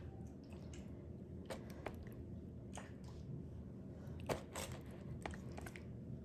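Soft wet squishes and a few scattered light clicks as raw, achiote-marinated pork chunks are handled and piled onto banana leaves in a baking tray, over a low steady room hum.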